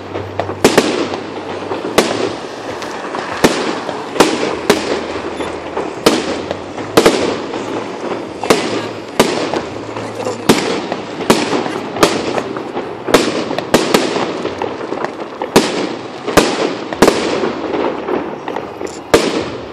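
Aerial fireworks shells bursting overhead in a steady barrage of sharp bangs, about one or two a second, each trailing off, over a continuous background rumble and crackle.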